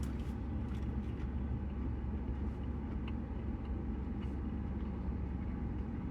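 Steady low rumble of an idling car heard from inside the cabin, with a few faint clicks.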